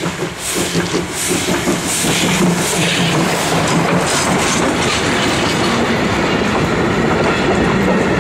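PKP class Pt47 2-8-2 steam locomotive (Pt47-65) passing close, its exhaust chuffing about twice a second. After about four seconds the chuffs give way to its carriages rolling by with a steady wheel-on-rail clatter.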